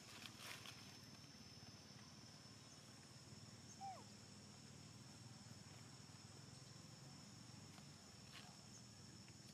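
Faint outdoor ambience: a steady high-pitched hum, a few soft rustles and clicks, and one short squeak about four seconds in.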